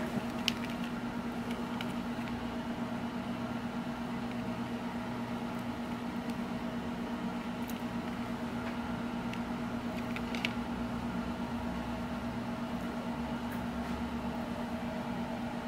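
Steady, even mechanical hum from an appliance or fan, with a few faint clicks of the umbrella rig's wire arms and hooks being handled.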